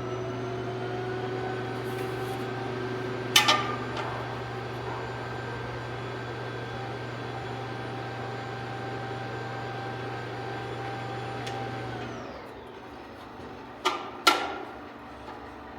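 Robotic vacuum's motor running steadily with a whirring hum, then winding down and falling in pitch about twelve seconds in. A couple of sharp knocks are heard, one early and a pair near the end.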